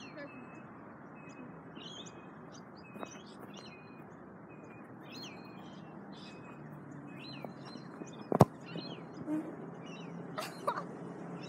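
Small birds chirping repeatedly over a steady background hiss, with one sharp thump about eight seconds in: a football being kicked for a penalty.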